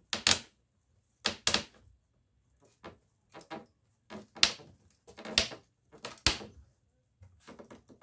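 Screwdriver prying at the corner of a wooden shipping crate's frame: a dozen or so short knocks, scrapes and creaks of metal on wood, coming irregularly with brief pauses between them.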